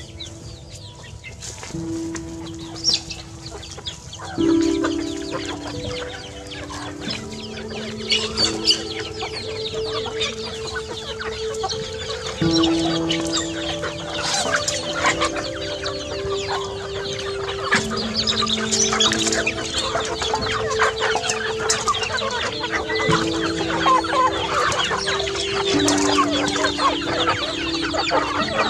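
A large flock of chickens clucking and pecking at feed, getting busier a few seconds in as the birds crowd around the food, over background music of long held notes.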